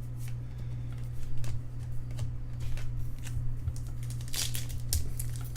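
Baseball trading cards being handled and flipped through by hand: light scattered clicks and rustles, with a brief crinkle about four seconds in, over a steady low hum.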